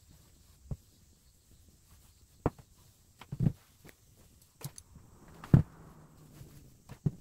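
A handful of separate dull knocks and thumps as a steam iron and a set of sewn fabric strips are handled on a padded ironing board, the loudest a little past halfway.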